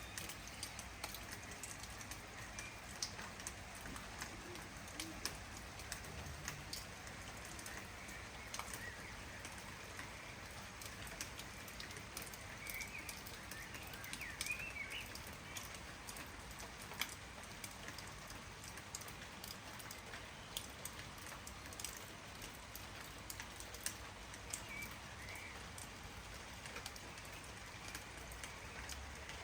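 Steady light rain with individual drops ticking, and a few short bird chirps about halfway through and again near the end.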